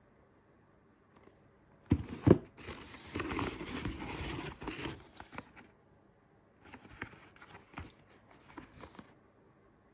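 Packaging being handled and unwrapped: two sharp knocks about two seconds in, then a couple of seconds of crinkling and rustling, and later a few scattered clicks and rustles.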